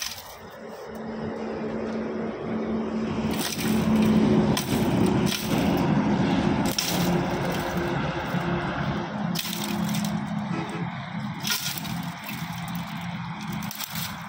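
A steady mechanical drone with a low hum, building over the first few seconds and then holding, with sharp cracks about eight times.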